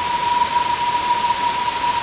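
Waterfall: steady rushing, hissing water. A single steady high tone sounds over it throughout.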